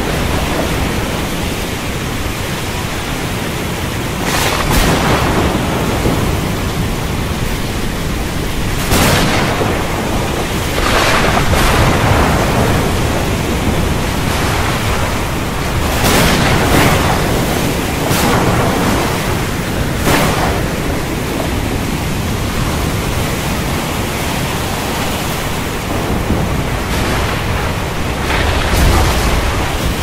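Storm at sea: a steady loud rush of wind and surf, with several louder surges of breaking waves and a low rumble of thunder near the end.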